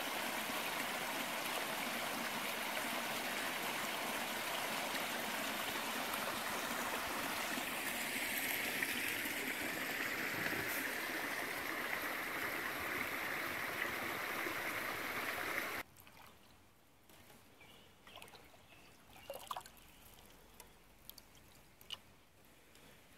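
Creek water rushing steadily over a beaver dam of sticks and branches. After about sixteen seconds it cuts off abruptly, leaving quiet water with faint drips and small splashes.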